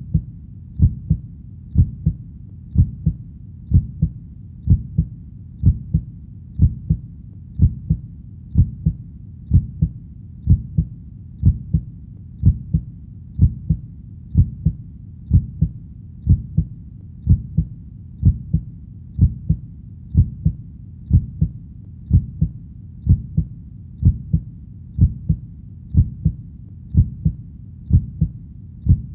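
Heartbeat sound: a steady, even rhythm of low, muffled two-part lub-dub beats, about one a second, over a faint low rumble between beats.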